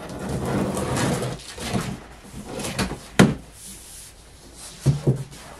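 A large cardboard shipping box being opened: a long scraping tear as the tape along the top is cut, then the cardboard flaps rustle and bump as they are pulled up, with one sharp knock about three seconds in.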